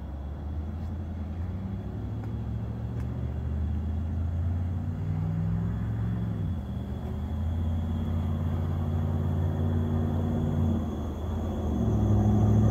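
The 1955 Chevrolet 3100 custom pickup's engine idling with a low, steady rumble that grows louder toward the end.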